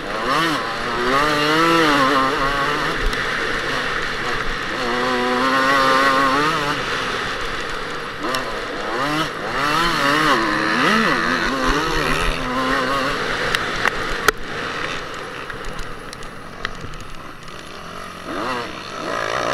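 Kawasaki KX125 two-stroke motocross engine revving up and down through the gears under race throttle, its pitch repeatedly climbing and dropping, heard from a camera mounted on the bike with wind noise. It eases off and runs quieter for a few seconds late on, with a few sharp knocks.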